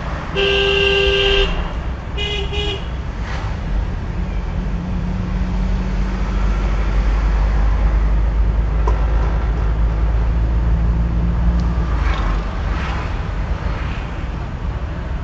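A vehicle horn honks twice: a loud honk of about a second, then a short one about two seconds in. Beneath it, the steady low drone of a car's engine and tyres at low speed, heard from inside the cabin.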